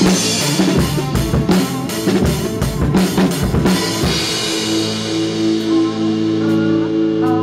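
Drum kit played in a busy run of snare, tom and cymbal hits along with a recorded rock song; after about four and a half seconds the drums stop and the recording's guitar carries on with held notes.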